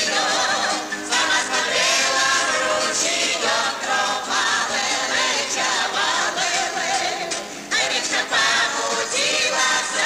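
A Gypsy ensemble's choir singing a song with instrumental backing.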